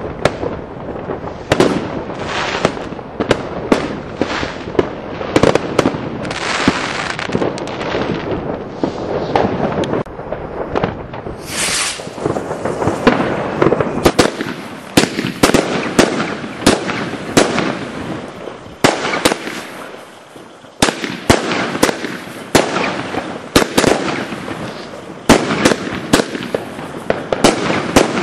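Fireworks and firecrackers going off without pause: many sharp bangs close together over a continuous crackling rumble. There is a brief high hiss about twelve seconds in.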